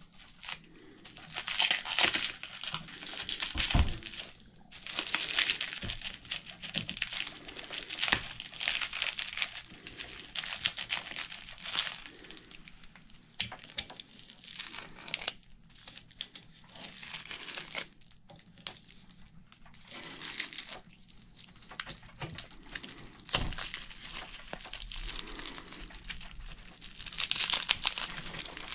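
Bubble wrap and clear plastic wrap being handled and pulled off long metal parts, crinkling and tearing in irregular bursts, with a few short knocks.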